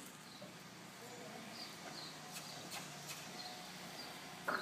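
Faint, soft hoofbeats of a young Thoroughbred horse under saddle on the arena's dirt footing, with several short, high chirps.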